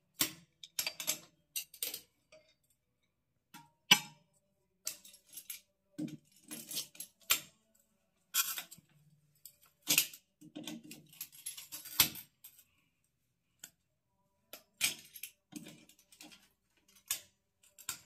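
Locking pliers clamped on a fitting in a wall pipe point, clicking and grating as the fitting is twisted and worked loose: a string of short, sharp metallic clicks and rasps at irregular intervals.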